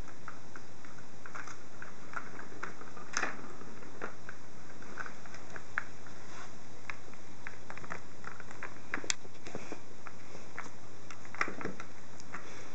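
Persian kittens batting at a plastic ball-track cat toy: scattered light clicks and taps, with a few sharper knocks about three, nine and eleven seconds in.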